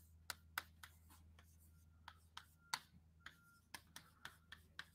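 Chalk tapping and scratching on a blackboard during writing: a string of faint, sharp, irregular clicks over a low steady hum.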